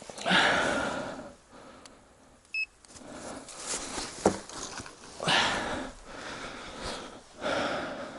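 A person breathing heavily close to the microphone, three long exhales, with a short electronic beep about two and a half seconds in and a single click a little after four seconds.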